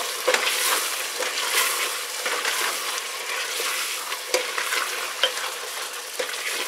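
Chunks of veal sizzling as they fry in oil with onion and tomato paste in an aluminium pressure-cooker pot, stirred with a slotted nylon spoon that scrapes and knocks against the pot now and then. This is the browning of the meat in the sauce base.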